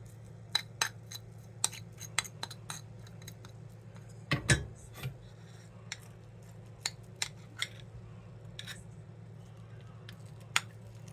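Scattered light clinks and clicks of a utensil against a dish as cat food is served, with one heavier knock about four and a half seconds in, over a steady low hum.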